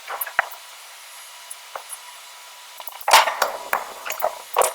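Irregular metallic clanks and knocks of forging work on hot iron. Two light knocks come at the start, then the loudest cluster of strikes about three seconds in, followed by a few more knocks.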